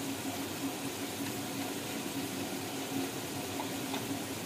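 Steady, even hiss of onion and tomato masala cooking in a pan on the stove.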